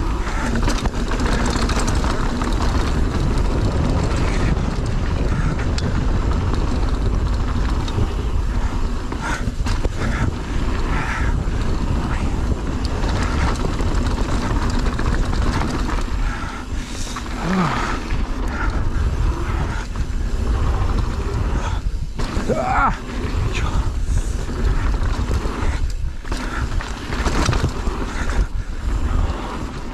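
Mountain bike ridden fast down a rough bike-park enduro trail: wind rushing over the microphone with a steady rush of tyre noise and constant rattling and knocking as the bike goes over roots, rocks and jumps. A couple of short wavering squeaks come near the middle.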